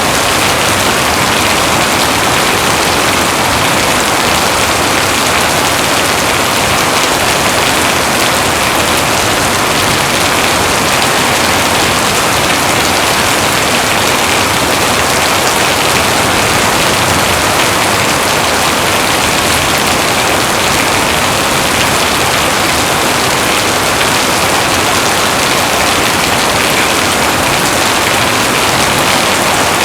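Heavy rain falling steadily, a dense even hiss of drops with no breaks or thunderclaps.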